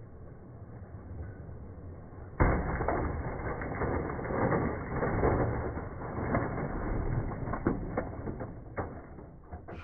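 G-scale model train crashing into a toy ambulance on the track: a sudden impact about two and a half seconds in, then several seconds of plastic clattering, cracking and scraping as the ambulance and cars tip over and derail onto the gravel ballast.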